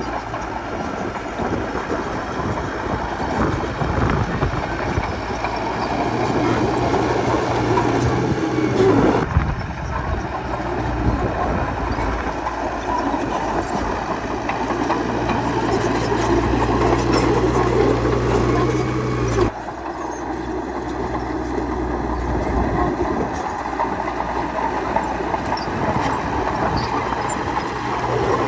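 Bulldozer's diesel engine running steadily with the clatter of its steel crawler tracks. The sound changes abruptly twice, about a third and two thirds of the way through.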